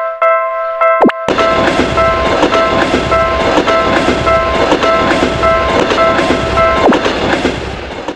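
Railroad crossing warning bell ringing in a steady repeating clang, with a train passing from about a second in: rumbling with a rhythmic clickety-clack of wheels over rail joints. The bell stops near the end and the train sound fades out just after it.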